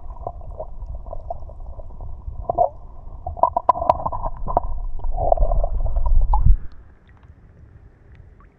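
Muffled underwater sound picked up by a submerged camera: low churning and gurgling water with scattered knocks. About six and a half seconds in it drops suddenly to a faint hiss as the camera comes up to the surface.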